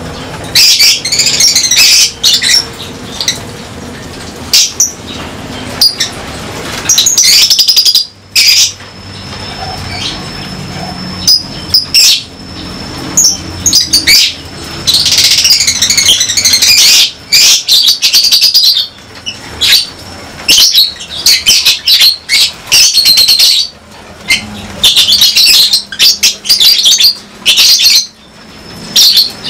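A colony of lovebirds chattering, with shrill high chirps coming in loud bursts every second or two and one thin steady whistle held for several seconds in the middle.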